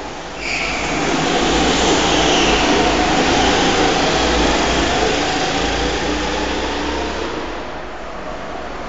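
Go-kart engines running as karts pass along the track, echoing in an indoor hall. The noise swells about half a second in and fades near the end.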